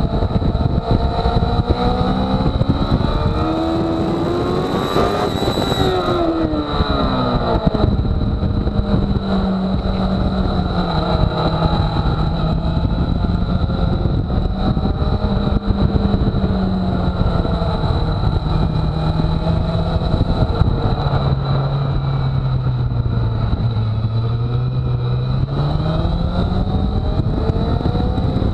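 Sport motorcycle engine heard from a camera mounted on the bike at speed on a race track, its pitch climbing over the first few seconds, dropping sharply about six seconds in, then holding and sagging slowly before climbing again near the end. Heavy wind rush on the microphone and a steady high whine run beneath it.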